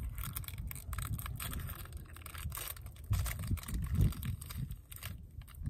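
Wind buffeting the microphone in uneven gusts, with light rustling and handling noises.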